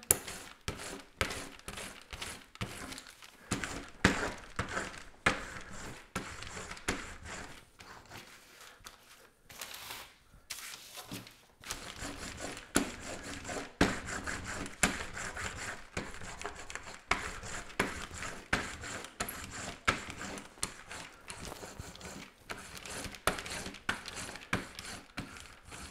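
A hand brayer roller rolled back and forth over transfer paper pressed onto a gel-coated wooden coaster, pushing out air bubbles. It makes a continuous run of short rubbing strokes and clicks.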